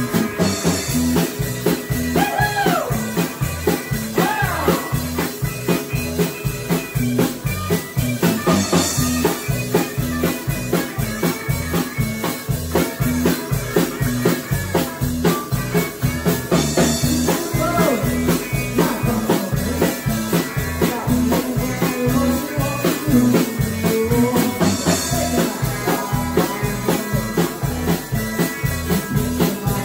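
A live band plays a country blues number on electric guitar, bass guitar and drum kit over a steady beat. A cymbal crashes about every eight seconds.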